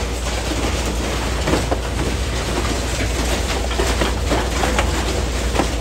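Heavy machinery: a steady low mechanical rumble with irregular metallic clanks and rattles.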